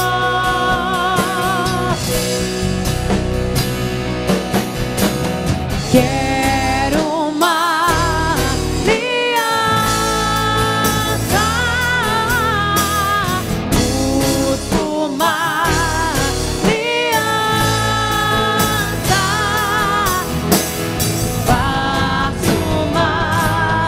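Christian worship band music: a full band with drum kit, a steady bass line and a lead melody that wavers widely in pitch.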